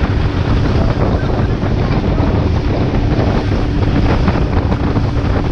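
Engine of a small open motorboat running at a steady hum while underway, with wind buffeting the microphone and water rushing past the hull.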